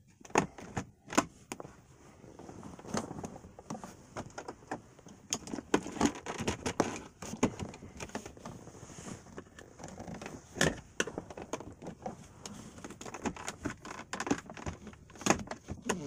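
A small screwdriver prying and scraping around the plastic shift-boot trim at a Hyundai Sonata's gear selector, with hands working the trim: a string of irregular clicks, taps and light scrapes.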